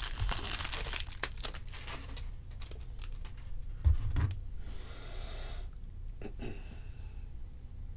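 Crinkling and rustling of handled trading cards and pack wrappers, with a run of light clicks in the first two seconds and a longer rustle about five seconds in.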